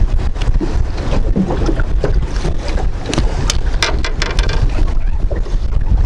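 Wind buffeting the microphone in an open boat, with a quick run of sharp clicks and knocks about three and a half to four and a half seconds in.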